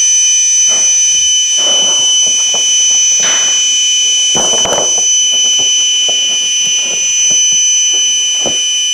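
A loud, steady, high-pitched electronic alarm tone from the Leader 120 mini quadcopter's electronics, sounding without a break on power-up with the newly wired camera and video transmitter: a sign that something is wrong with the wiring. Light clicks and rustles of hands handling the quad come through over it.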